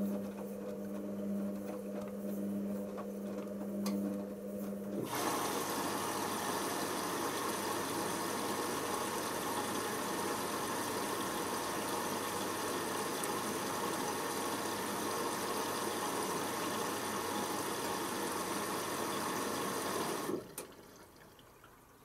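Hoover Optima OPH714D washing machine in its pre-wash. A steady motor hum runs for about five seconds and then stops. Water then rushes in through the inlet valve for about fifteen seconds, topping up the fill, and cuts off suddenly.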